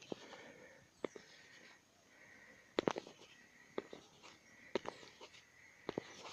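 Handling noise from a handheld phone: scattered sharp clicks and taps, several of them close together about three seconds in, over a faint steady high tone and hiss.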